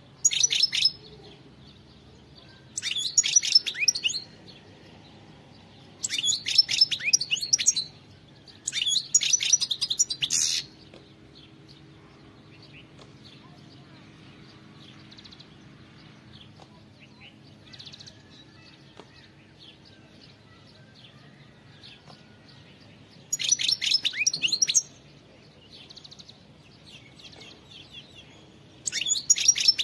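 European goldfinch (Carduelis carduelis) singing in short bursts of rapid, high twittering, each phrase one to two seconds long. Four phrases come close together in the first eleven seconds, then only a few faint chirps follow until two more phrases near the end.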